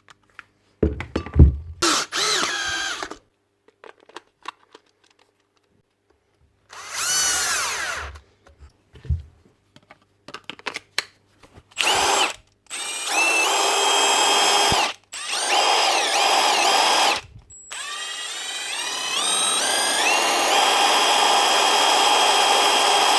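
Milwaukee M12 stubby impact wrench running free with no load in several trigger pulls. The motor whine rises as it speeds up and falls away at each release, then holds steady through a longer run near the end. It is the test of its variable-speed trigger switch, just cleaned with contact cleaner to clear a dead spot.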